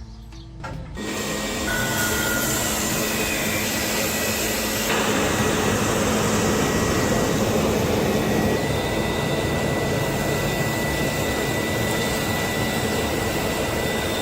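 A motor-driven machine running steadily, starting about a second in: a loud even hiss with a faint steady high whine and a low hum.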